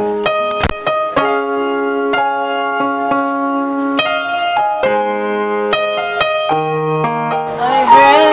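Electronic keyboard playing sustained piano-like chords that change about once a second, with a few sharp clicks between them. A boy's voice starts singing near the end.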